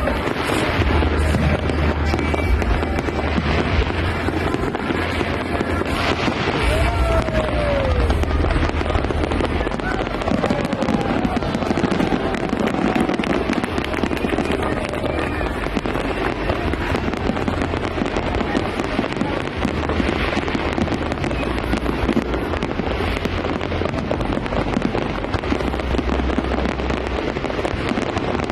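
Aerial fireworks going off in rapid, continuous succession: dense crackling with deep booms coming one after another, and a few brief whistles.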